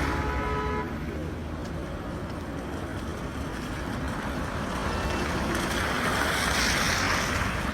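Street traffic: a vehicle horn sounding briefly at the start, then steady traffic noise that swells near the end as a vehicle passes.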